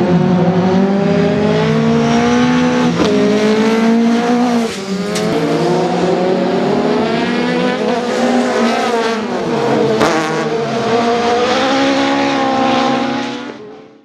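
Rallycross cars and buggies racing at full throttle. Several engines rev up and drop back with each gear change, with a few sharp cracks in between. The sound fades out near the end.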